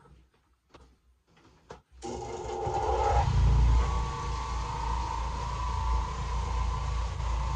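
Oreck Orbiter orbital floor machine coming on abruptly about two seconds in, then running steadily with a deep hum and a steady whine as its brush scrubs carpet. A few faint clicks before it starts.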